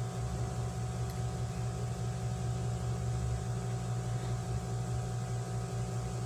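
A steady low hum with a few faint higher steady tones above it: background room noise from some running appliance. The thin stream of condensed milk makes no sound of its own.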